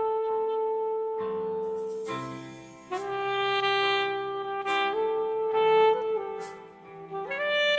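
Saxophone playing a slow love-song melody over a backing track. It holds one long note for about two seconds, then moves on through a string of shorter notes.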